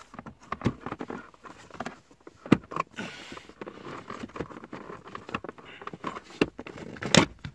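Hands pulling loose the plastic trim panel around the glovebox of a Citroën C4 Picasso: scattered clicks, knocks and rustles of plastic. The loudest knocks come about two and a half seconds in and near the end.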